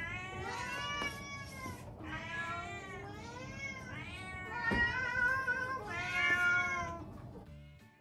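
Several house cats meowing, about five long drawn-out meows one after another with the pitch bending up and down, as they wait around someone cooking to be fed. The meowing stops about seven seconds in and music begins.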